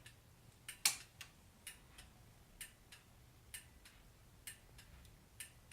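Heavy-duty two-wire turn signal flasher relay clicking on and off, a pair of clicks about once a second: a normal flash rate with LED bulbs, no longer hyper flashing.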